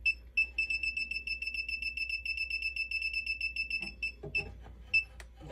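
Klein Tools ET310 circuit breaker finder receiver beeping fast, a steady string of short high beeps about nine a second, the signal that it is over the breaker carrying the transmitter's signal. After about four seconds the beeps thin out to a few scattered ones.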